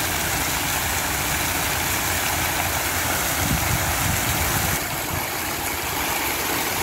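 Multi-jet courtyard fountain splashing steadily, its vertical jets falling into the basin in a continuous loud rush of water, a little quieter about five seconds in.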